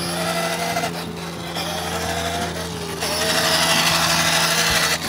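Children's battery-powered ride-on quad running: a steady small electric motor whine over the grainy rumble of its hard plastic wheels rolling on asphalt. It gets a little louder about three seconds in.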